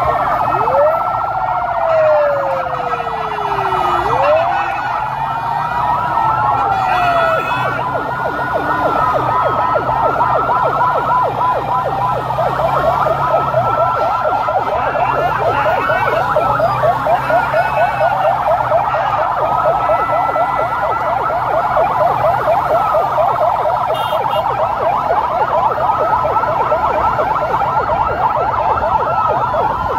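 Several police car sirens sounding at once and overlapping. Slow rising and falling wails give way after several seconds to a fast warbling yelp, over a low steady hum of vehicle engines.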